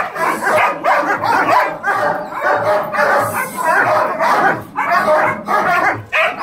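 Large mastiff-type dog barking over and over in a steady run, about two barks a second.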